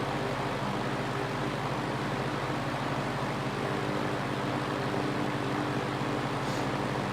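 Mid-1960s Fasco model 2077 20-inch box fan running steadily on medium speed with its motor reversed to exhaust mode, a steady motor hum under the rush of air from blades designed for intake turning backwards. The owner says the motor needs work.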